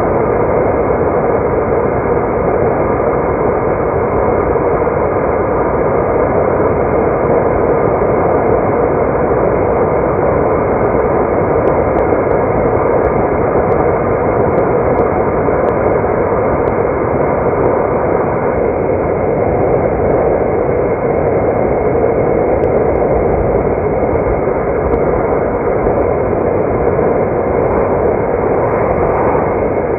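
Steady, dull road and engine noise of a car being driven, an even rush with nothing in it above the middle range.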